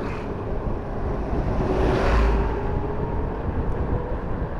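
Wind rushing over the microphone of an electric bike ridden at about 35 km/h on throttle alone, with tyre and street noise under it. A stronger gust buffets the microphone about two seconds in.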